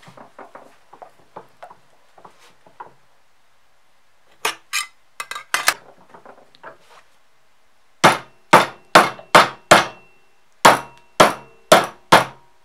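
Hammer blows on thick leather laid over the metal jaws of a bench vise. There are a few light taps and clicks, then some harder strikes. In the second half come about ten sharp, loud blows at roughly two a second, with a slight metallic ring.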